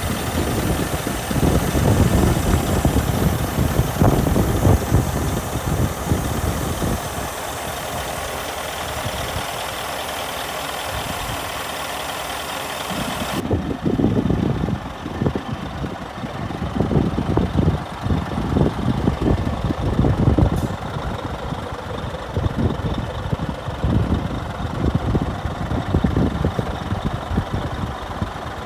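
Scania R440 tractor unit's six-cylinder diesel engine idling, with uneven low buffeting throughout. A steady hiss over the top cuts off suddenly about halfway through.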